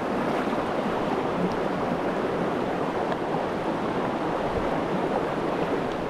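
Shallow rocky mountain brook rushing over stones: a steady, loud wash of flowing water.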